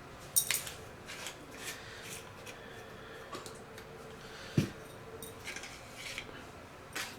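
Handling noises from a plastic flashlight and its packaging: scattered light clicks and rustles, with one sharp knock about four and a half seconds in.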